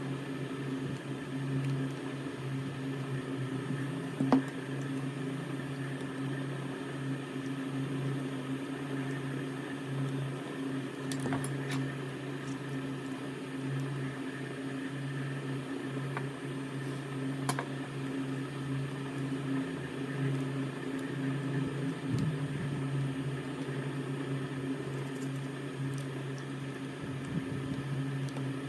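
A small machine's steady electrical hum, with a few light clicks; the sharpest comes about four seconds in.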